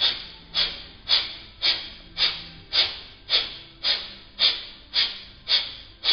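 Kapalbhati pranayama: a man forcing out short, sharp exhalations through the nose, about two a second in a steady rhythm, with the in-breath passive and nearly silent between them.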